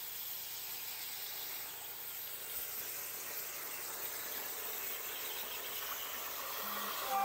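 Titanium Cut 45 air plasma torch on a Langmuir Systems CrossFire CNC table cutting sheet metal: a steady, high-pitched hiss of the plasma arc. A brief pitched whine joins it near the end.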